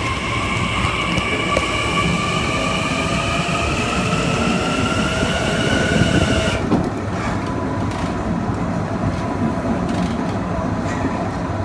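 Kawasaki M9 electric multiple unit's IGBT-VVVF inverter and AC traction motors whining with several tones that climb steadily in pitch as the train gathers speed. About two-thirds of the way in, the higher tones cut off suddenly, leaving the rumble of wheels on track and a faint steady tone.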